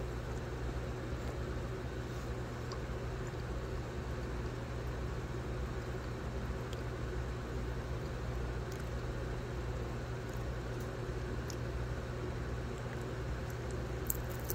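Steady low hum with a faint even hiss, broken by a few faint clicks.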